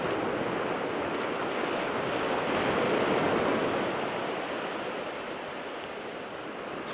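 North Sea surf washing on the beach: a steady rush of waves that swells about three seconds in and then eases off.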